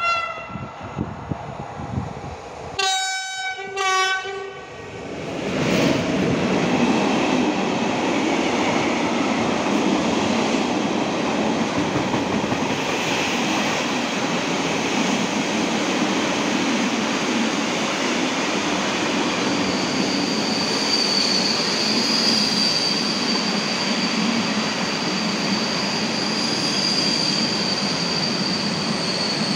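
ET22 electric freight locomotive sounding its horn: a brief note at the start, then two blasts about three and four seconds in. Then a long train of tank wagons rolls past close by with steady wheel clatter, and a high steady wheel squeal sets in about twenty seconds in.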